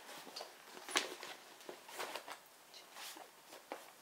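Fabric of a changing pad and diaper bag being handled: irregular rustling and scraping, with one sharp click about a second in.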